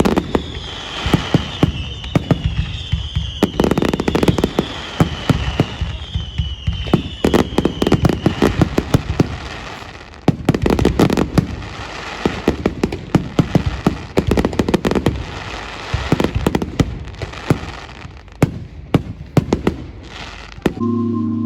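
Fireworks going off: dense, rapid bangs and crackling, with a repeated falling whistle through the first third. Music starts just before the end.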